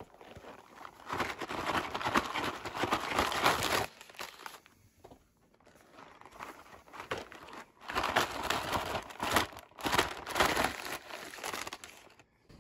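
Cardboard snack-cake boxes being opened and handled while the individually wrapped plastic packs inside crinkle and rustle as they are tipped out. It comes in two stretches with a lull of a few seconds between.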